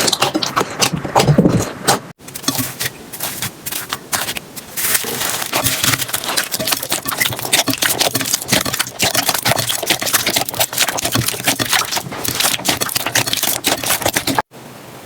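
Slime being squeezed and worked by hand, giving dense, rapid crackling clicks and pops, with abrupt cuts about two seconds in and near the end.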